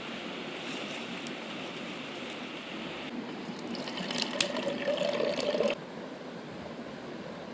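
River flowing steadily, with a liquid being poured into a container for about two and a half seconds in the middle, stopping abruptly.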